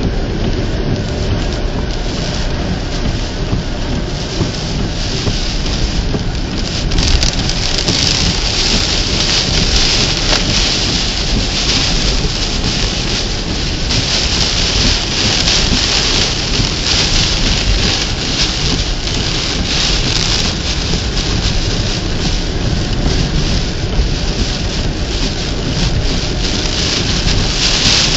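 Heavy rain pouring down in a thunderstorm, getting louder about seven seconds in and staying heavy.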